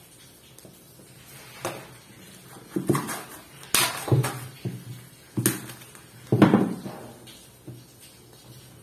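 PVC cling film being pulled off its roll, stretched over a glass dish and pressed down, giving several sharp crackles and rustles of plastic, loudest in the middle.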